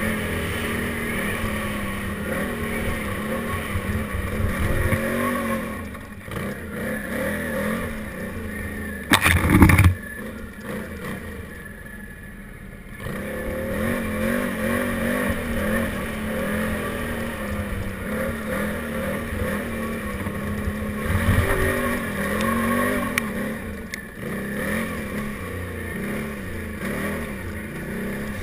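Can-Am Renegade 800 ATV's V-twin engine running under throttle while riding over rough dirt, its revs rising and falling. A short, loud thump comes about nine seconds in, followed by a few seconds of quieter, lower-revving running before the engine picks up again.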